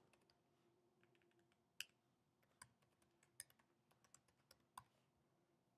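Faint typing on a computer keyboard: a run of irregular, soft key clicks, a few a little louder than the rest.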